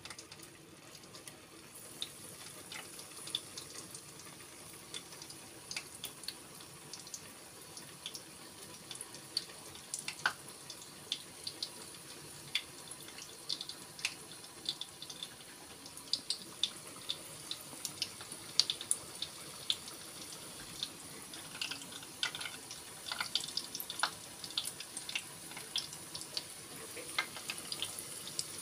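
Hot oil in an electric deep fryer sizzling with a steady hiss and scattered crackling pops as balls of puff puff batter fry, the pops coming more often in the last several seconds.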